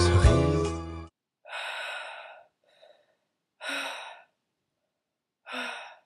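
Music cuts off about a second in, followed by three short breathy sighs from a person, each under a second long, with silence between them.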